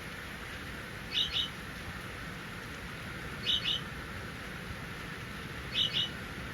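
Budgerigar giving short double chirps, three times about two seconds apart, over a steady background hiss.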